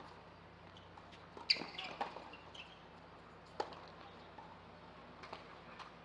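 A tennis rally on a hard court: sharp pops of the ball off racket strings and the court, about one every couple of seconds. The two loudest strikes come about one and a half seconds in and at about three and a half seconds.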